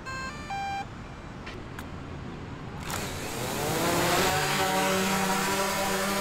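DJI Mavic 2 Zoom quadcopter: a short three-note beep, then about three seconds in its motors start and spin up with a rising whine, settling into a steady propeller buzz as the drone lifts off.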